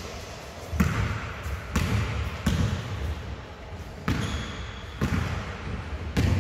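A basketball bouncing on a sports-hall floor, about six irregular bounces that echo around the hall, with a short high squeak about four seconds in.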